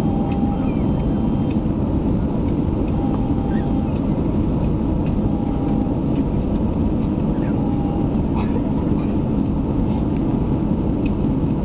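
Steady roar of engine and airflow noise inside an Airbus A320's cabin on final approach, heard from a window seat beside the wing, with faint brief tones and small ticks on top.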